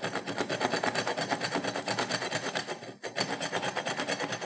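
Saw-back teeth on the spine of a hollow-handle survival knife rasping back and forth across a wooden stick in fast, steady strokes, with a brief pause about three seconds in. The teeth are scraping the bark away rather than cutting a notch.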